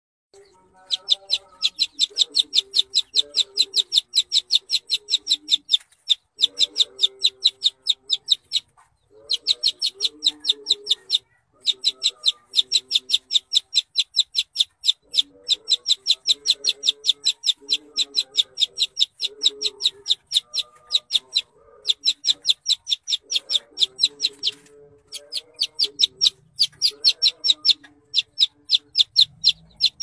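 A domestic chick peeping loudly and rapidly, about five high chirps a second in runs of a few seconds broken by short pauses, with quieter lower calls underneath.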